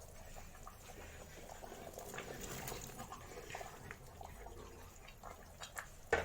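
Pot of sausage, potatoes and tomato sauce simmering, with soft bubbling and small scattered clicks. There is a single sharp knock near the end.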